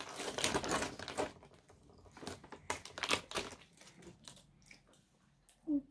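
Crinkling of a foil-lined snack bag as a small child's hand rummages in it and pulls out banana chips. It is loudest in the first second or so, with a second bout of crackling about two to three seconds in.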